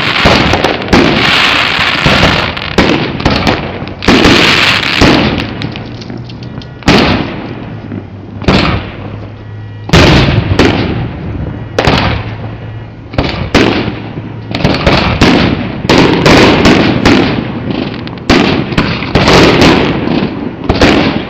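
Fireworks display: a rapid run of loud bursts and crackles, thinning out about six seconds in and coming back in dense volleys after about ten seconds.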